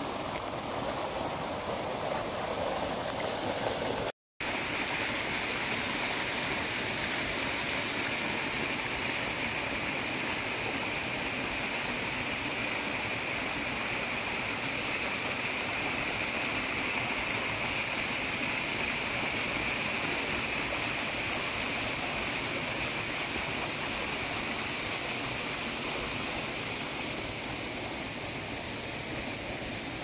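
Shallow mountain stream running over stones, then, after a brief silent break about four seconds in, the steady rush of a waterfall, higher and hissier than the stream.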